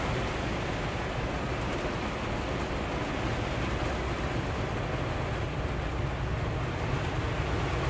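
Heavy rain on a semi-truck's cab and windshield, a steady hiss over the low steady rumble of the truck's diesel engine, heard from inside the cab.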